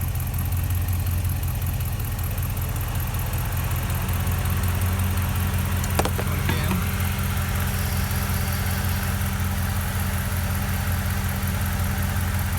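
Dodge Ram pickup's engine idling steadily during an A/C recharge, with a few sharp clicks about six seconds in.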